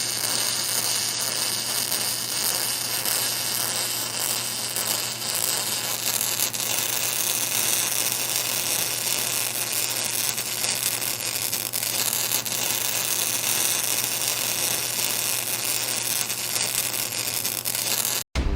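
TIG (argon) welding arc buzzing with a steady hiss while the root pass is laid on a flange-to-pipe joint. It stops abruptly near the end.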